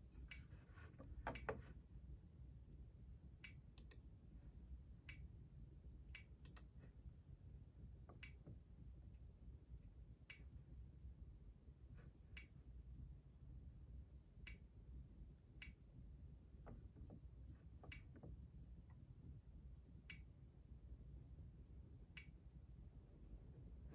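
Near silence: a low steady hum with faint, sharp clicks every second or two, and a brief cluster of louder clicks about a second in.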